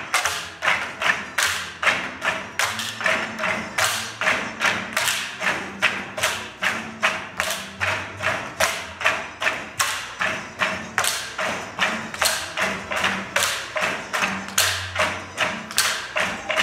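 Tinikling poles tapped on the floor and clapped together in the dance's steady rhythm, a run of sharp knocks about two to three a second.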